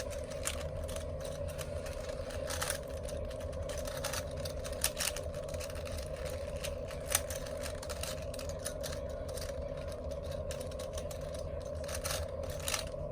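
Plastic layers of a 4x4 Rubik's cube being turned, giving irregular short clicks and clacks, over a steady background hum.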